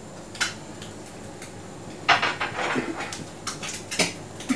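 Dog handling a bone treat: sharp clicks and clatters on brick paving, with a denser burst of crunching and clattering about two seconds in.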